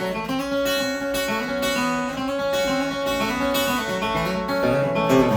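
Instrumental break in a song: acoustic guitar strumming with a steady rhythm, no singing.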